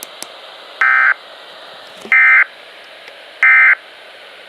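Three short buzzy bursts of SAME digital data from a NOAA Weather Radio broadcast, each about a third of a second long and about a second and a third apart, over a steady hiss: the end-of-message code that closes the severe thunderstorm warning.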